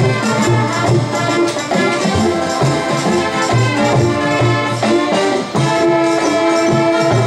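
High school marching band playing: brass with marching drums and pit percussion, sustained chords over a steady beat.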